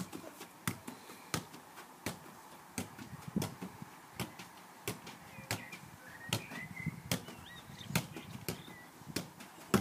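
A football kicked up again and again in keepy-uppy juggling: quick, regular taps of foot on ball, about two to three a second.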